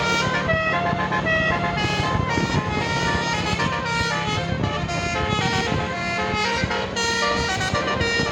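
Indonesian bus 'telolet basuri' musical air horn playing a melody: a quick run of stepped horn notes, several a second, over the steady drone of the bus engine.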